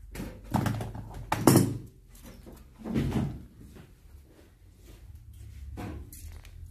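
Knocks and thuds of a heavy finned electric-motor stator housing being shifted on a workbench, with three louder knocks in the first three seconds and a lighter one near the end.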